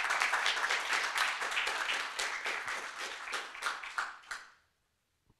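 Audience applauding, the clapping thinning to a few last separate claps and stopping about four and a half seconds in.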